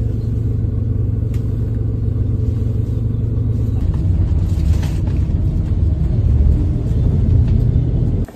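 Bus engine and road rumble heard from inside a moving bus, a steady low drone that cuts off suddenly near the end.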